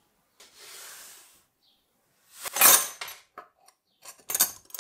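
Small metal parts clinking and rattling together in hands, in several short bursts. A soft rustle comes first, the loudest clatter about two and a half seconds in, then a few single clicks and more clinks near the end.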